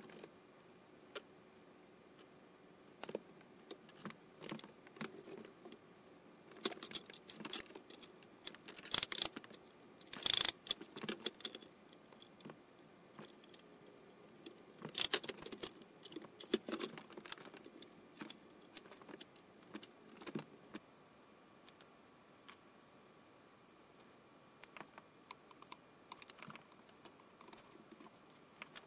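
Wooden door parts and metal bar clamps being handled on a workbench while a frame-and-panel door is dry-fitted and clamped up: scattered knocks, clicks and light clatters, busiest in the middle with the loudest clatters about a third of the way through.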